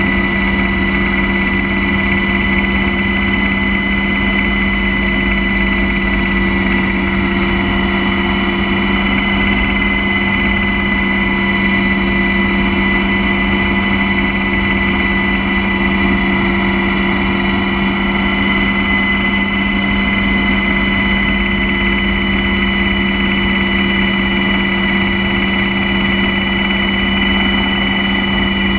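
Aircraft engine heard on board in flight: a loud, steady drone with a constant low hum and a high whine.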